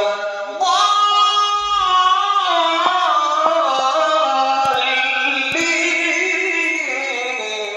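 A man reciting the Quran in the melodic, drawn-out tajweed style: one long phrase of held, ornamented notes that slide slowly from pitch to pitch, trailing off near the end.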